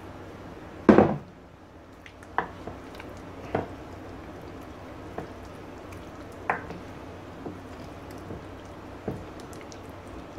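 Raw chicken wings being squished and turned by hand in a dish of wet marinade paste: a string of short, separate wet slaps and squelches, one every second or so. A louder thump about a second in.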